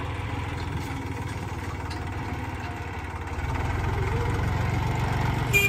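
Diesel engine of a John Deere tractor running while its front loader lifts and tips a bucket of manure. It grows louder about three and a half seconds in.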